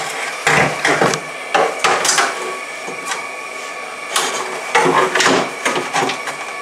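Hollow plastic knocks and scrapes from a Tesla Model S front-trunk tub being lowered into the car and worked into place, in several irregular bursts.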